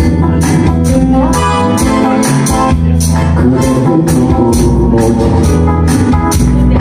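Korean trot song accompaniment: keyboard with an organ-like tone over a steady drum beat.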